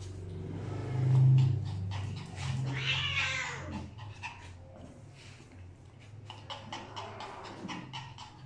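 A cat giving a low, drawn-out growling moan, with a higher wavering yowl about three seconds in, as it is held down and mounted by a small dog. In the second half come light clicks and scuffling on the hard floor.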